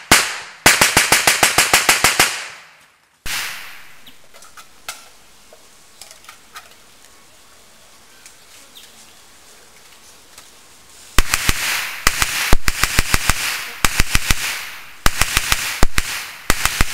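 Bren light machine gun, converted to a gas gun, firing bursts of rapid shots at about six a second. One burst comes in the first two seconds, then a pause with only a few faint pops, then several short bursts close together over the last six seconds.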